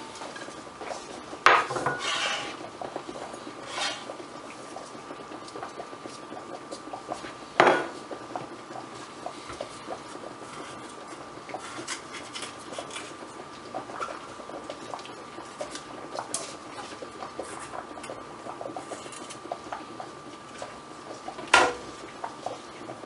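Chef's knife cutting red bell pepper into thin julienne strips on a cutting board: a long run of light, quick taps, with a few louder knocks of the knife or hand on the board. A faint steady high hum runs underneath.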